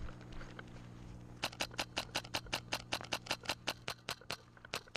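Airsoft gun firing a fast, even string of shots, five or six a second, starting about one and a half seconds in and keeping on.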